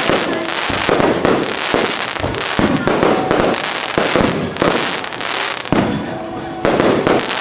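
Aerial fireworks shells bursting in quick succession: a dense run of bangs and crackling.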